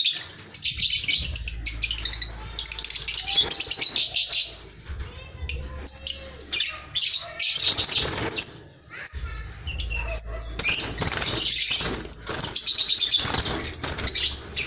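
Lovebird chicks calling in rapid, high-pitched chirps, in runs of about a second each, while being handled out of the nest box. A low rumble sits under some of the runs.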